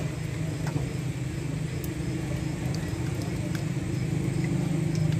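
Steady low mechanical hum of a running motor, with a few faint clicks.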